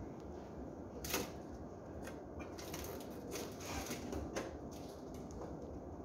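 Hand work on a refrigerator's sheet-metal panel and fittings: a sharp click about a second in, then a run of scraping and clicking handling noises.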